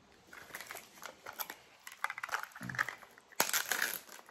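The crinkly plastic wrapper on a Mini Brands surprise capsule being peeled off and crumpled by hand: irregular crackles, with the loudest burst a little after three seconds in.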